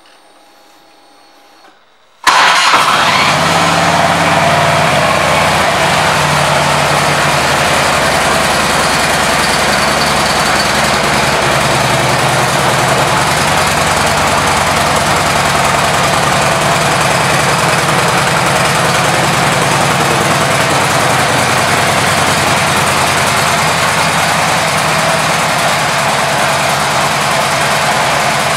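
2006 Harley-Davidson Road King Classic's Twin Cam 88 V-twin starting suddenly about two seconds in, then settling into a steady idle.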